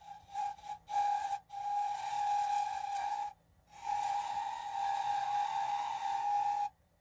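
A metal file held against a wooden handle spinning on a wood lathe, squealing with a steady whistle-like tone. The tone breaks off briefly several times, longest for about half a second a little before the middle.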